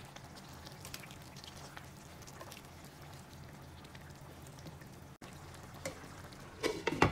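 A pot of squash, pork and string-bean stew simmering in a pan, faint bubbling with scattered small pops while it is stirred with a spatula. A brief louder sound near the end.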